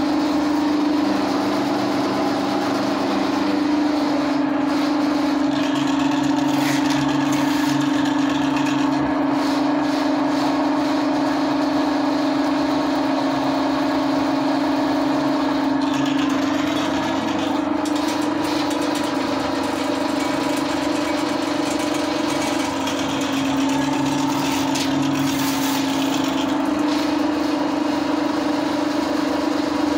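Electric drain-cleaning machine running steadily with a strong even hum, its spinning spiral cable working inside a clogged floor drain. The cable gives occasional short rattles.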